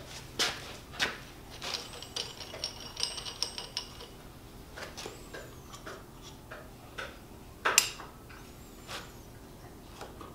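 Light metallic clicks and knocks from a knife blade and locating pin being handled and set in a milling-machine vise, with the loudest knock about eight seconds in. A brief high ringing tone sounds about two to four seconds in.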